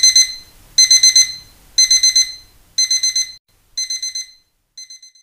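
Electronic beeping like a digital alarm clock: bursts of rapid high beeps about once a second, growing fainter, the last burst short and faint near the end.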